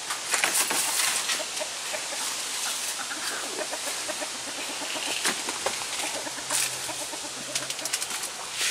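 Hens clucking in a backyard coop, with scattered clicks and rustling throughout.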